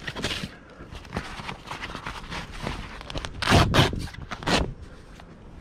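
Camper trailer canvas rustling and scraping as it is pushed and tucked by hand, with louder bursts of rustling about three and a half seconds in and again a second later.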